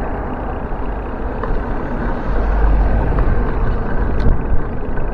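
Wind rushing over the microphone of a camera on a moving bicycle, mixed with city street traffic; the low wind rumble gets heavier about halfway through.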